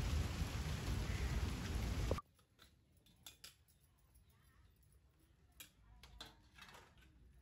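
Steady rain falling, cut off abruptly about two seconds in. Then a few faint clinks of stainless steel plates and vessels being handled and scrubbed during dishwashing.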